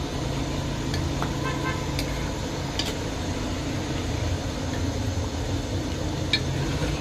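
Metal ladle stirring chicken in an aluminium pot, scraping and clinking against the pot a few times, over a steady low hum and traffic-like background noise.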